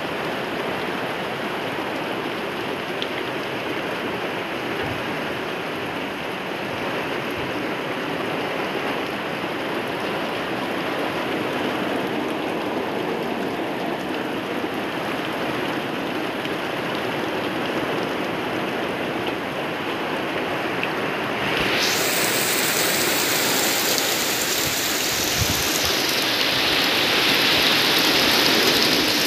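Heavy typhoon downpour, rain pouring steadily as an even hiss; about three quarters of the way through it grows louder and hissier.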